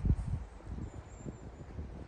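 Wind buffeting the microphone: irregular low rumbling thumps, the heaviest just after the start, over a faint hiss.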